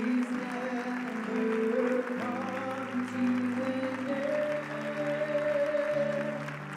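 Background music: a keyboard holding slow sustained chords that change every second or two.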